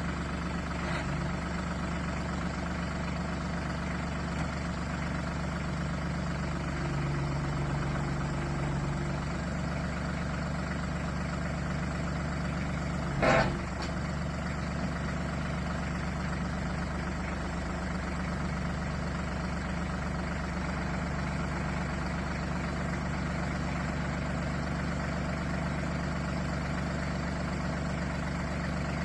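Branson compact tractor's diesel engine running steadily, with one brief sharp burst about thirteen seconds in.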